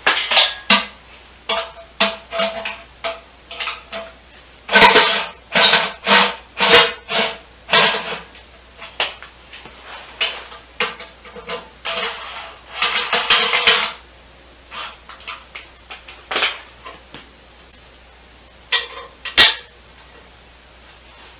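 Hand tools and bolts clinking and rattling against the thin sheet-metal dust shield and bellhousing of a 727 transmission as the shield is fitted. Sharp metallic clanks come in irregular clusters, some with a brief ring. They are densest about five to eight seconds in and again around twelve to fourteen seconds, with a last sharp clank near the end.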